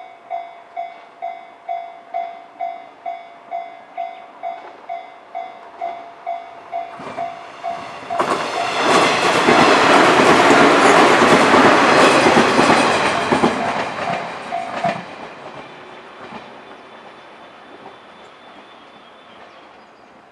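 Japanese level-crossing alarm ringing its electronic bell about twice a second as a train approaches. About eight seconds in, the train passes loudly over the crossing for about seven seconds. The bell stops as the train clears, and the train sound fades away.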